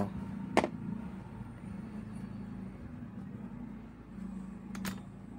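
Sharp clicks and knocks as a graphics card's aluminium heatsink and plastic fan shroud are handled and fitted together: one loud click about half a second in and a quick double click near the end, over a steady low hum.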